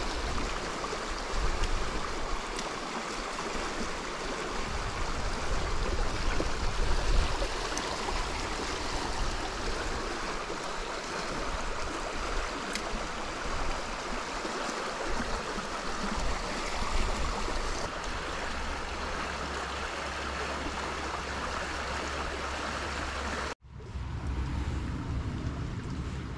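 Rushing water of a small, fast-flowing stream: a strong current giving a steady, even rush. Near the end the sound cuts out for an instant and comes back softer and duller.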